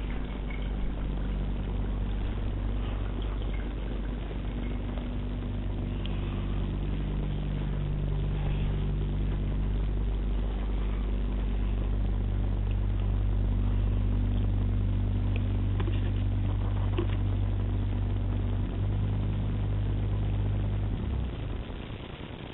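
A work truck's engine running steadily, a low hum heard through the house walls, dropping away sharply near the end.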